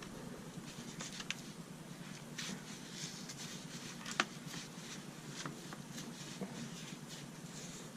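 Faint handling noise from the flashlight as its threaded USB cover around the neck is unscrewed: light rubbing and scraping with a few small clicks, the sharpest about four seconds in.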